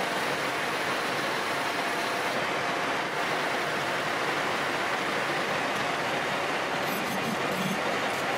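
Colchester Master 2500 lathe running under power, its carriage auto-feeding a facing cut across a spinning round workpiece: a steady, even mechanical noise, with a few faint high clicks near the end.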